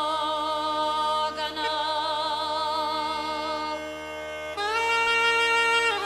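Background music: a melody in long held notes that waver in pitch, then a new steady note comes in and is held for about a second and a half near the end.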